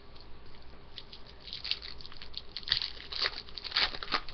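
Hockey trading cards being handled and slid against one another: papery rustling and scraping, with several sharper crinkly rubs in the second half.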